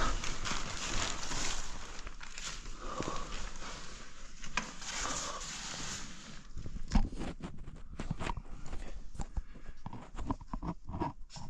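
Rustling, then from about six seconds in a run of irregular small knocks and clicks. These are the noises taken for some animal stepping on and rummaging through a pile of rubbish in the abandoned house.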